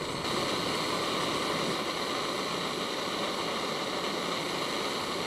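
Upright canister gas stove burning steadily with an even hiss under a lidded MSR Titan titanium kettle, the water inside at about 99 °C and just coming to the boil.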